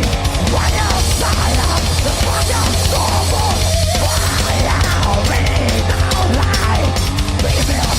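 Thrash metal song playing loud and steady: distorted electric guitars over heavy bass and dense, driving drum-kit playing, with a wavering melodic line above.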